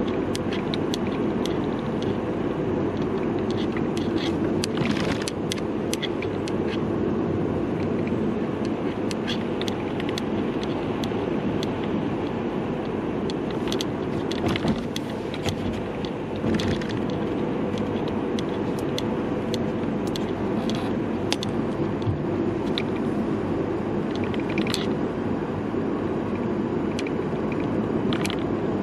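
Steady road noise inside a moving car's cabin, with frequent irregular clicks and rattles from the camera's hanging strap knocking about.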